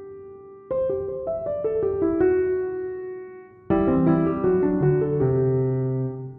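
Background piano music: struck notes ring and fade away, with a new phrase starting about a second in and another just past the middle.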